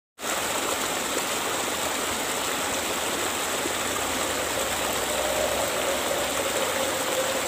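Small stream running over rocky rapids: a steady rush of water.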